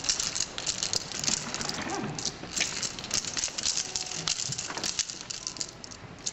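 Close rustling and crinkling with many small, irregular clicks near the microphone, thinning out near the end.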